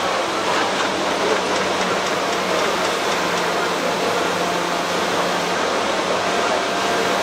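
Steady noise of a busy hall with a low, even machine hum; no sound stands out from it.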